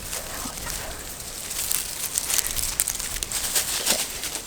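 Chickens scratching and pecking in dry garden mulch, making irregular crackling and rustling, with faint clucking.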